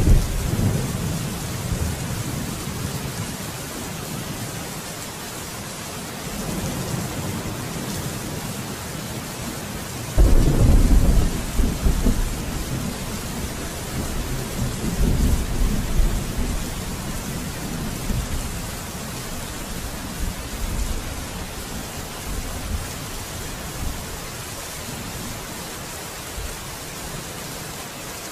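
Steady rain with thunder rumbling several times; the loudest, deepest rumble starts about ten seconds in and lasts a couple of seconds.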